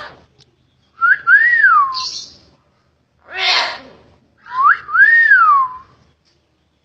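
Hill myna whistling twice, each whistle swooping up and then gliding down, with a short harsh raspy sound between them.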